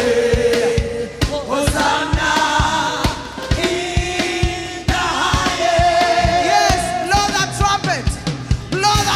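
Live worship music: voices singing long held notes over a steady drum beat.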